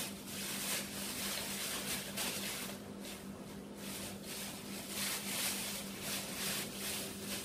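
Thin plastic bags crinkling and rustling as gloved hands twist and wrap a ball of pizza dough, in uneven spurts, over a steady low hum.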